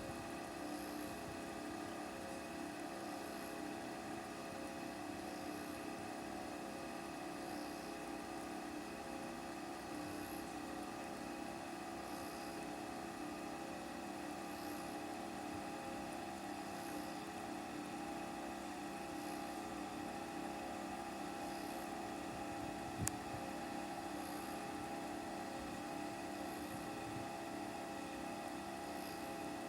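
Steady machine hum holding several even tones, with one sharp click about 23 seconds in.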